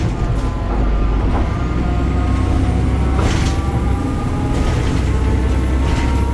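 BredaMenarini Avancity Plus city bus with a Deutz diesel engine and ZF automatic gearbox, running under way: a steady low rumble with a faint whine that shifts in pitch, and two short bursts of noise about 3 and 6 seconds in.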